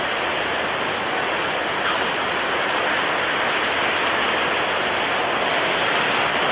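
Steady rushing roar of storm wind and a rough, cyclone-driven sea: an even, unbroken noise with no separate wave crashes standing out.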